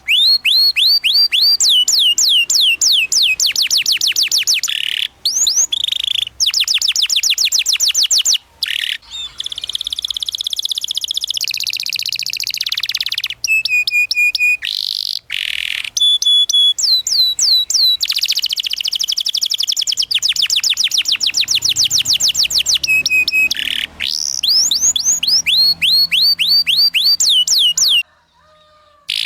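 Domestic canary singing a long song of fast repeated chirping trills, each note a quick downward sweep, broken by a few short held whistled notes. The song stops briefly near the end, then resumes.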